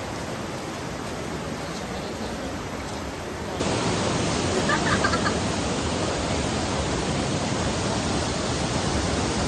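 Steady rushing roar of a waterfall, an even wash of noise that gets louder about three and a half seconds in.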